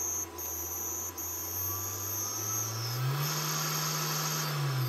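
3020 CNC router's spindle motor running with a steady whine. About two seconds in it speeds up, its pitch rising, then holds and slows back down near the end.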